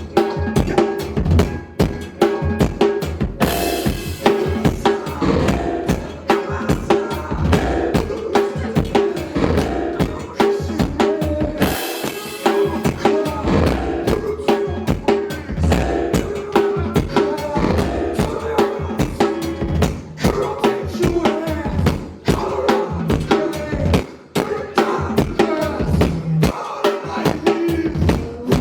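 Live band music driven by dense, rapid drum-kit playing of kick, snare and rimshots over sustained pitched instruments, with cymbal crashes at about 3.5 s and again about 12 s in.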